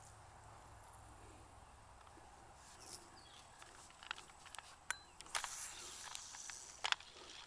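Faint outdoor ambience, quiet at first, then a few scattered sharp clicks and a short rustle about five seconds in.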